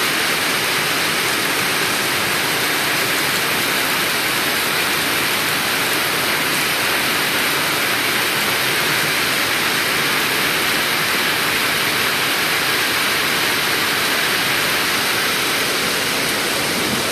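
Rain falling steadily: a loud, even hiss that does not change.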